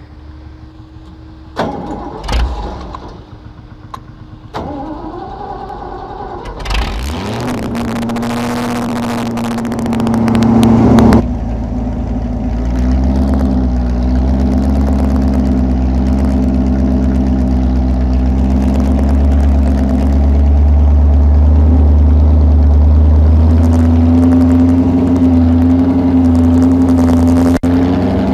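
Holden 253 V8 engine in a grey Ferguson tractor, running through short open exhaust stacks. It runs fairly quietly with a couple of sudden blips in the first few seconds, revs up with a rising note about seven seconds in, then runs loud and steady while the tractor drags a tined cultivator through the ground.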